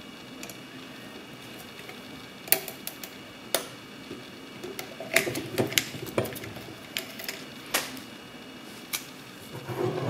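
Small metal clicks and scrapes of a home-made skeleton key and tension tool working inside a Sargent & Greenleaf mailbox lever lock: single sharp clicks at irregular spacing, a quick cluster about halfway, then a louder, duller rustle at the very end.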